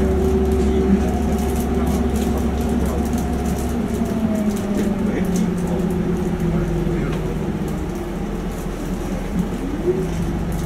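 A route bus's diesel engine and drivetrain running, heard from inside the passenger cabin as the bus slows to pull into a station stop. The engine note falls gradually around the middle, and a low hum drops out about four seconds in.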